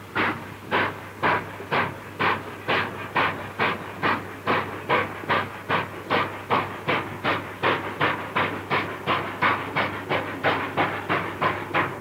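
New South Wales Government Railways 38 class 4-6-2 Pacific steam locomotive under way, its exhaust chuffing in an even beat that quickens from about two to about three and a half chuffs a second as it gathers speed.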